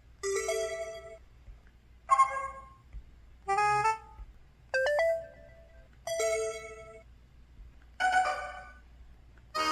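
Synthesized system tones from an EVER EV-W530 mobile phone's Qualcomm CMX 72-voice sound chip, recorded straight from the phone's hands-free connector: a run of about seven brief chimes and jingles, each different and under a second long, one every one to two seconds.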